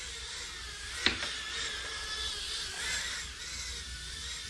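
Micro FPV drone's small motors whining in flight, the pitch wavering as the throttle changes, with one sharp tap about a second in.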